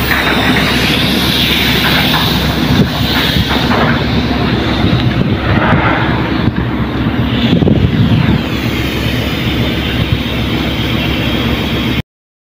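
Steady low drone of a cargo ship's machinery, with wind on the microphone and a few scattered knocks. It cuts off abruptly near the end.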